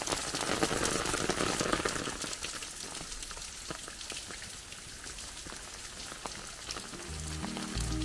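Steady patter of rain with many light drop ticks. Music comes in near the end.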